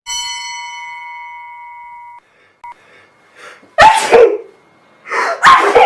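A bell-like ding rings for about two seconds and cuts off abruptly. A person then sneezes loudly about four seconds in, and sneezes again near the end.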